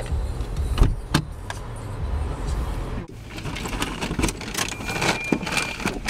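Low car-interior rumble of the engine and body, with a few sharp clicks and knocks. About halfway it cuts to crinkling and rustling as grocery bags and a plastic snack bag are handled.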